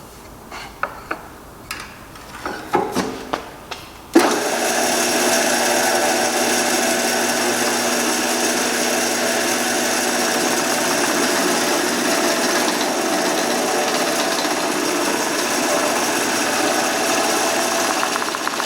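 A few light knocks of wood being handled, then about four seconds in a woodworking power tool switches on and runs steadily.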